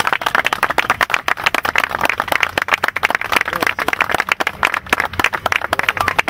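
A small group of people applauding: a dense run of hand claps from many hands at once.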